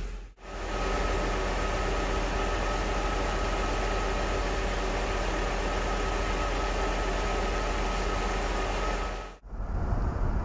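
Mercedes M119 5.0-litre V8 idling smoothly and steadily with new distributor caps fitted, no misfire heard. About a second before the end it cuts to the car pulling away, heard from inside the cabin.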